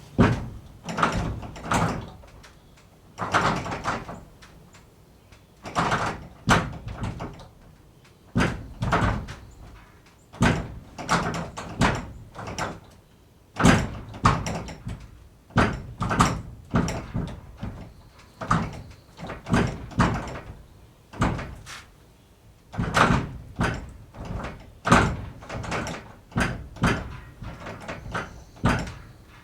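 Barn door being worked over and over: a long run of knocks, bangs and rattles, coming in clusters every second or two.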